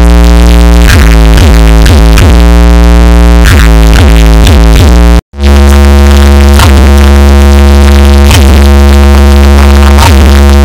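Loud electronic dance music: sustained synthesizer chords over a heavy bass drone, with repeated falling pitch-drop sweeps. It cuts out for an instant about five seconds in, then resumes.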